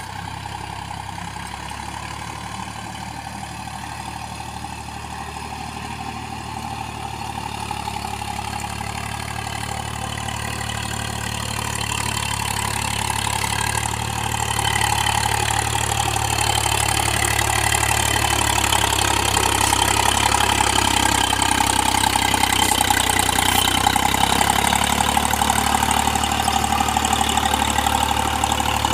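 Swaraj tractor's diesel engine running steadily under load as it pulls a rotavator tilling the soil. It grows louder in the second half as the tractor comes close.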